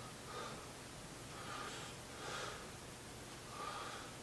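Several faint breaths of a man recovering from a set of dumbbell arm exercises, coming every second or so.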